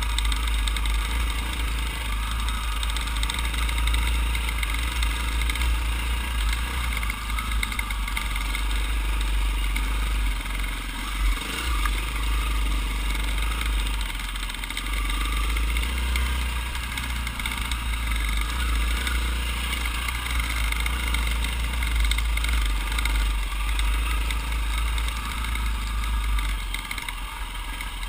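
Dirt bike engine running at trail-riding speed, heard from a camera mounted on the bike, with a heavy, steady wind rumble on the microphone.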